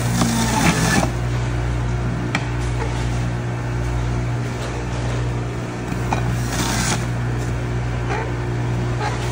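A steady low machine hum with occasional light clicks and knocks over it.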